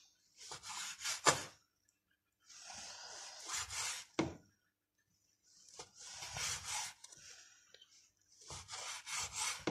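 Kitchen knife chopping thin slices of cured ham on a cutting board: four short spells of quick cutting strokes and scraping, with pauses between.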